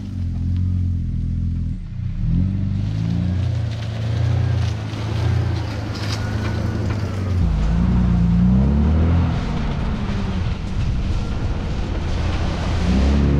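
Toyota 80 Series LandCruiser four-wheel drive grinding slowly along a rough bush track, its engine note rising and falling with the throttle, with scattered knocks and rattles.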